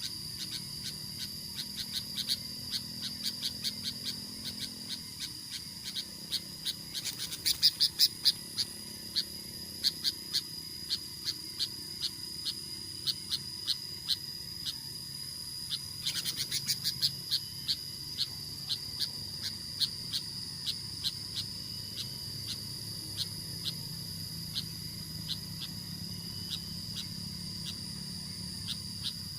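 Wild animal sounds: a steady high insect drone with calls ticking about three times a second, and two louder bursts of rapid ticking, one about 7 to 8 seconds in and one about 16 seconds in.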